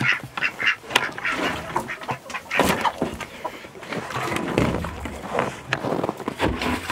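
Farm poultry calling repeatedly in short calls, mixed with footsteps crunching on snow.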